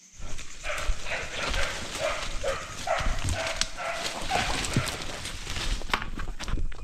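Dog barking repeatedly, about two short barks a second, over rustling and handling noise.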